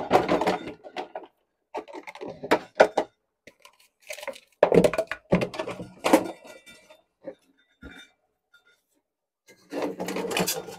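Pots, pans and utensils knocking and clinking in several bursts of clatter, with sharp thunks among them and a busier clatter near the end.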